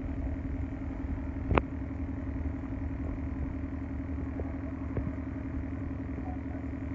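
A steady low drone with a constant hum, and one sharp knock about a second and a half in.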